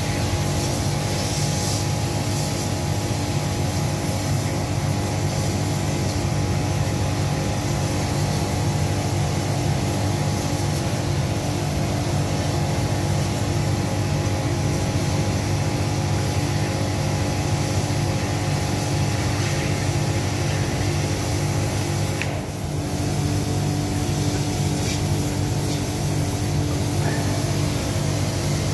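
Drain-jetting machine running steadily, its engine and pump giving a constant drone with a hiss on top as the jetting hose works in the drain. The sound dips briefly about three quarters of the way through.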